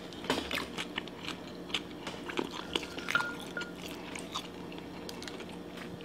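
Close-up chewing and biting of crispy fried chicken: irregular crunches and wet mouth clicks.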